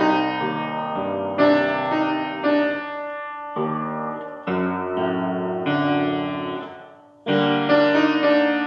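Grand piano played: full chords struck one after another and left to ring and fade. About seven seconds in the sound dies away briefly before a loud new chord.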